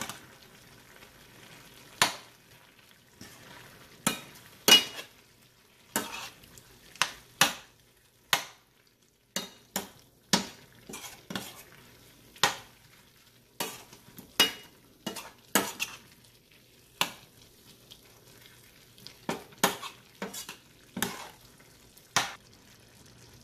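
Mutton liver being stirred with a spoon in a cooking pan: irregular clacks and scrapes of the spoon against the pan, about one a second, over a faint sizzle as the masala-coated liver cooks.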